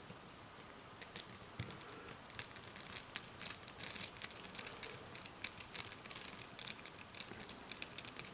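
Screwdriver tip turning a small steel screw to fasten a rifle's rear sight onto the receiver, making faint, irregular little metal clicks and scrapes that start about a second in.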